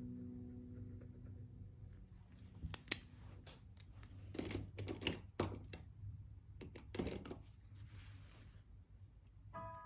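Paper and stationery being handled at close range: a sharp click about three seconds in, then several short rustling scrapes, after a held background music note fades out.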